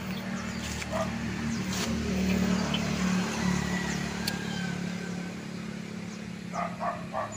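A low engine hum that swells about two seconds in and slowly fades, with a few light clinks of a metal spatula against a steel wok.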